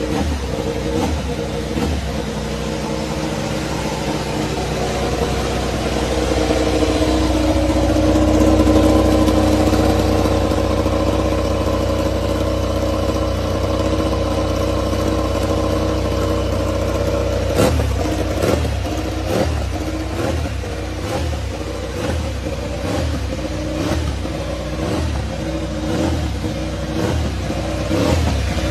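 MotoGP race bike engine running on a paddock stand: a steady, even run for the first half, then a series of short throttle blips, one after another, through the second half.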